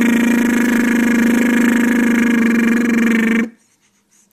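A man's voice holding one long, steady, buzzing drone that sounds like an engine, then cutting off suddenly about three and a half seconds in.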